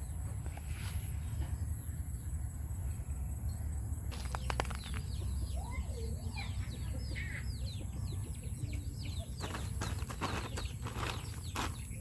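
Young chicken peeping in a rapid run of short, falling chirps, starting about four seconds in, over a steady low rumble. A few sharp rustling noises come near the end.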